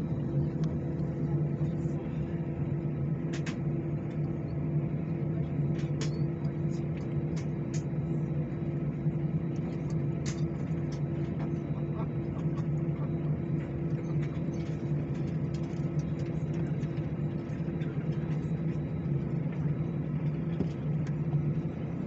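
Steady low drone inside an Airbus A319's cabin as the airliner stands on the apron, with two even hum tones and no rise or fall in pitch. Light scattered ticks sound over it.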